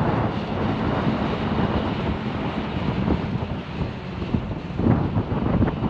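Wind buffeting the microphone over the steady hum of a running engine.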